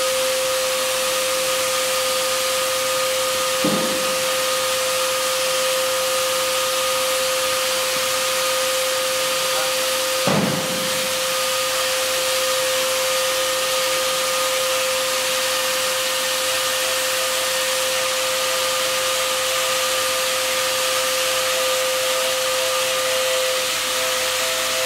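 Electric air blower running steadily with a constant whine and a rush of air, pumping air through a hose into a TPU bubble soccer ball. Two brief thumps stand out, at about 3.5 and 10 seconds in.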